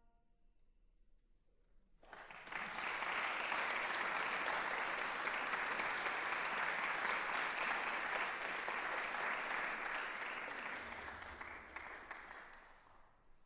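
Audience applauding, starting about two seconds in and fading away near the end.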